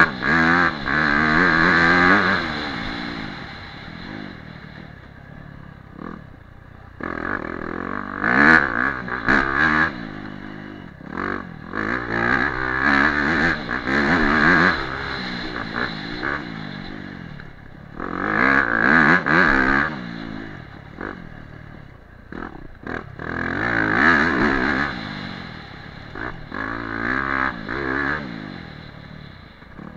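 Dirt bike engine, ridden on a dirt track, revving up hard and backing off again and again, with a loud throttle surge every few seconds and quieter running between.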